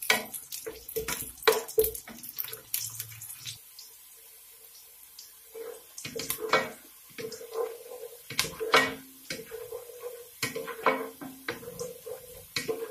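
Wooden spatula scraping and knocking against an aluminium pot while sliced onions fry in oil with a faint sizzle. The strokes are irregular, with a short pause in the stirring a few seconds in.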